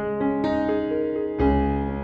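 Background music on an electric piano: sustained notes changing every half second or so, with a deep bass note coming in about one and a half seconds in.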